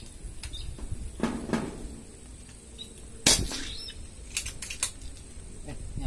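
A single sharp air rifle shot cracks about three seconds in, followed about a second later by a few lighter clicks. Low wind rumble on the microphone throughout.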